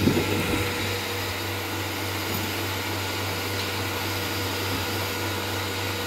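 Portable bucket milking machine running during milking: its vacuum pump gives a steady hum with a hiss over it. A brief louder knock comes right at the start.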